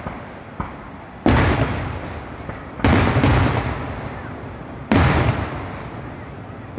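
Aerial firework shells bursting: three loud booms a second and a half to two seconds apart, each trailing off in a long rolling echo, with a fainter pop just before the first.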